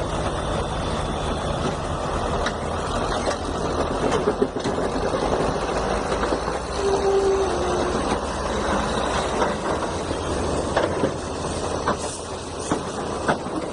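Heavy vehicle engine running steadily under a rough mechanical din, with scattered short knocks.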